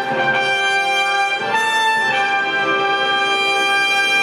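Orchestral brass fanfare music, trumpets and trombones holding long chords that shift pitch a couple of times.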